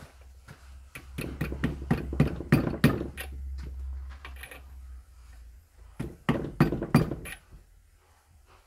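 A mallet knocking repeatedly on a drift held against the shaft in a K750 motorcycle engine's front cover, tapping a lip seal into place. A quick run of knocks comes about a second in and lasts a couple of seconds, then a shorter group of harder knocks follows past the middle.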